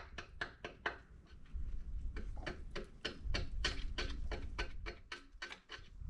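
A run of rapid, uneven clicks and taps, several a second, over a low rumble.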